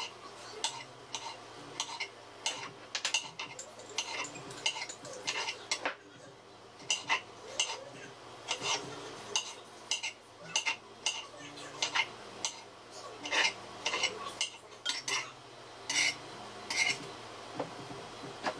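Kitchen knife chopping a tomato on a plastic cutting board: irregular sharp taps of the blade against the board, a couple a second, with short pauses between runs.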